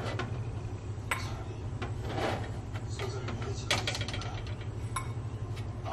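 Light clicks and taps as baked cookies are lifted off a metal baking sheet and handled over a ceramic bowl, with a brief scrape about two seconds in, over a steady low hum.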